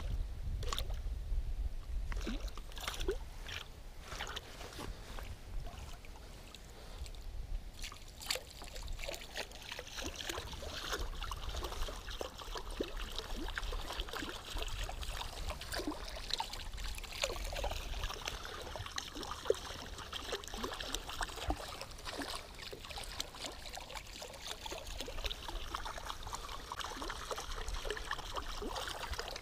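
Topwater musky lure gurgling and splashing across the lake surface as it is reeled in, the churning denser from about eight seconds in, over a low rumble of wind on the microphone.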